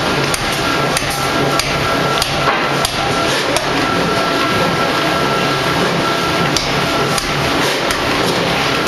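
D51 ring rolling machine running as it rolls a red-hot steel ring: a loud, steady mechanical din with a low hum, broken by irregular sharp metallic knocks and clicks.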